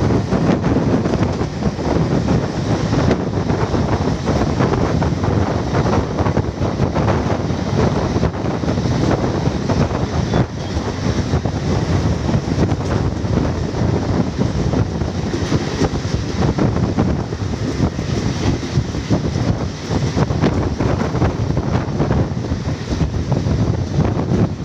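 Garib Rath Express train running at high speed: a loud, steady rumble with heavy wind buffeting the microphone.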